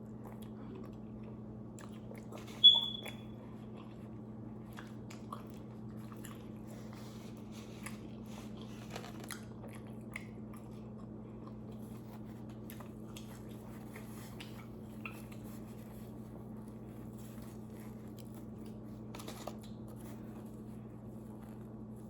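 Close-up chewing and biting of pizza, with faint scattered wet clicks over a steady low hum. One sharp clink with a brief ringing tone sounds about three seconds in.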